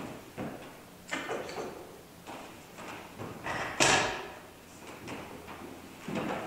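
Footsteps on a wooden floor with knocks and clunks of objects being handled and set down, and one louder clunk just under four seconds in.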